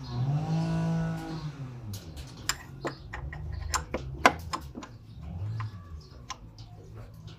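Ratchet wrench with a socket extension working a bolt on a Subaru 2.5 engine, giving irregular sharp metallic clicks and clinks; the loudest comes about four seconds in. Music plays for the first two seconds.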